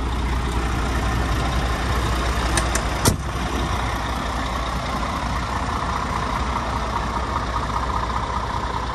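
Scania P370 tipper truck's diesel engine idling steadily, with a sharp thump about three seconds in.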